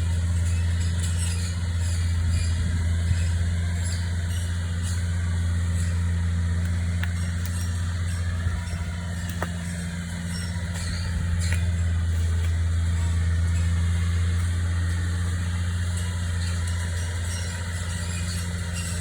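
Engine of a tree-trimming machine running steadily with a deep, even hum, with a few faint clicks over it.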